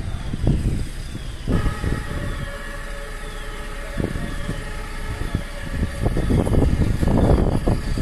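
Building fire alarm sounders wailing: a high falling sweep that repeats a little more than once a second, over low rumbling street and vehicle noise. A steady hum comes in about a second and a half in and stops around six seconds, and the rumbling grows louder near the end.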